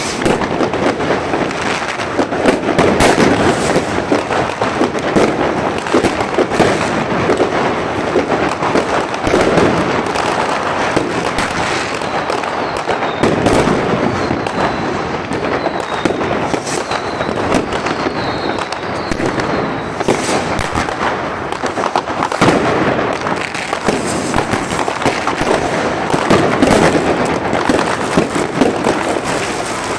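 Fireworks and firecrackers going off all around: a continuous crackling, banging barrage of many rockets and bangers at once, with a few faint high whistles about halfway through.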